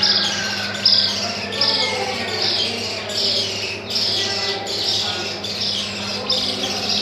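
A brood of newly hatched Australorp and Rhode Island Red chicks peeping: short high chirps that slide down in pitch, about two a second and overlapping, over a steady low hum.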